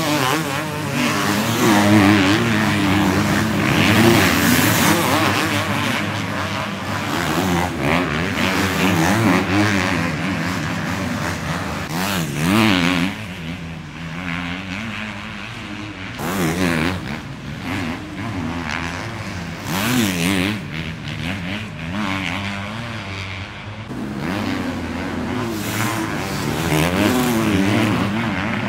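Several 250cc motocross bike engines racing past, revving hard and easing off again and again so the pitch keeps rising and falling. They are loudest in the first few seconds and again near the end as bikes pass close.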